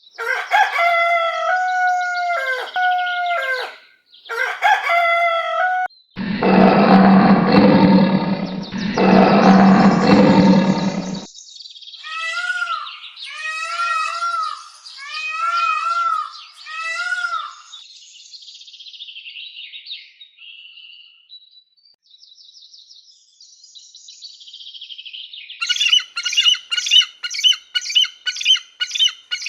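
A string of different animal calls. It opens with several pitched calls that step down in pitch, then two long harsh calls, then repeated short bird chirps, ending in a fast run of chirps.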